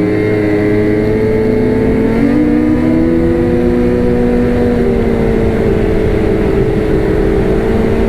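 Ski-Doo Renegade X-RS snowmobile's two-stroke 850 E-TEC engine running at a steady trail speed under the rider. The pitch rises a little about two seconds in, then holds.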